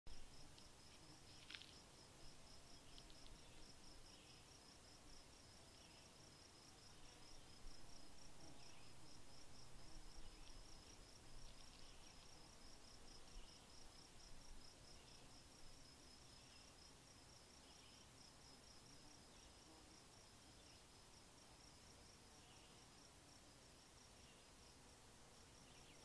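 Faint outdoor ambience of an insect chirping in a fast, even, unbroken rhythm, with a few faint short calls scattered through it.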